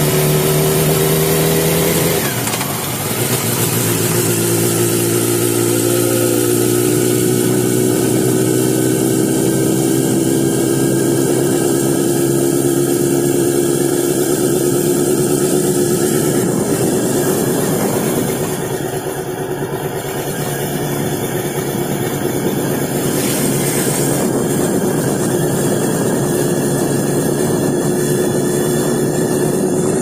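Honda sport motorcycle's engine running at cruising speed, with wind rushing over the microphone. The engine note dips briefly about two seconds in, then holds steady.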